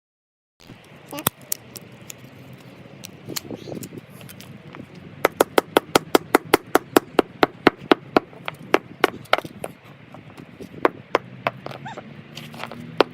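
Hammer blows smashing a Samsung Galaxy S3 phone: a few single sharp strikes, then a fast, even run of strikes about three a second, then scattered blows again.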